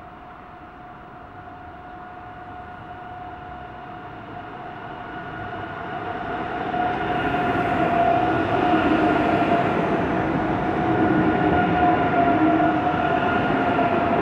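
Deutsche Bahn ICE 3 high-speed electric train approaching and running past close by, growing steadily louder until it is alongside about seven seconds in. Rolling rumble of the wheels with a steady high whine from the traction equipment over it.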